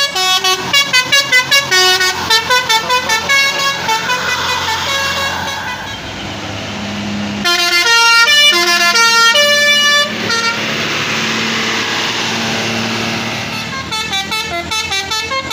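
Multi-tone 'telolet' bus air horns playing quick melodic phrases, note after note, with a stretch of bus engine noise in the middle before the horn tunes start again near the end.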